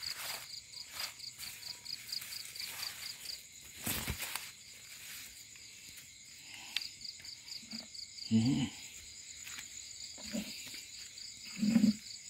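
Insects chirping in a steady pulsing rhythm, broken off for a couple of seconds partway through, with the rustle of leaves being pushed aside and a sharp click. Several short dull thumps in the second half.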